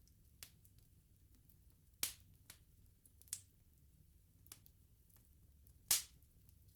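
Wood bonfire crackling: sharp, irregular pops from the burning logs, a few a second at most, with a loud one about two seconds in and the loudest near six seconds, over a faint low background rumble.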